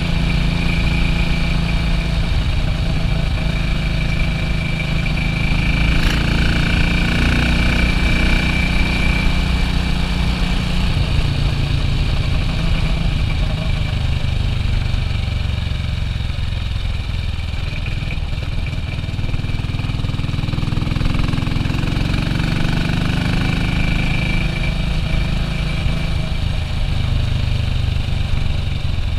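1967 BSA B40 WD single-cylinder motorcycle engine running under way, its note easing off about a third of the way through and picking up again later on.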